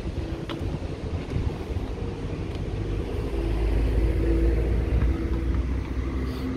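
A motor vehicle's engine rumbling past, swelling to its loudest about four seconds in and easing off near the end.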